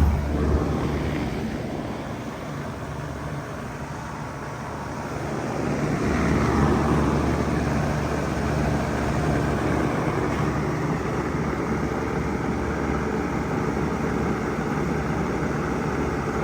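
Bard 3-ton wall-hung heat pump running during a defrost cycle: a low hum drops away just after the start, then about six seconds in the hum and a rushing noise come back up and run steadily.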